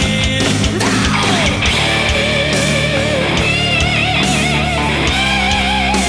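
Rock music with drums and guitar, a lead line wavering up and down in pitch.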